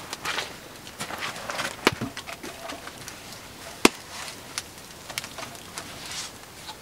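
Wood campfire crackling, with scattered sharp pops, the loudest about four seconds in, along with some soft scuffing of someone moving about by the fire.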